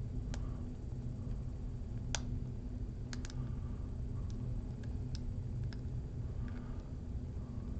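Faint, irregular metallic clicks of a hook pick working the pin tumblers inside an American Lock 1100 series padlock, about ten scattered ticks, some in quick pairs. A steady low hum runs underneath.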